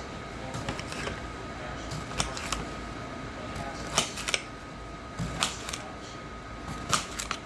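Irregular clicks and light taps of hands handling things in a kitchen while making pickles, over a faint steady high hum.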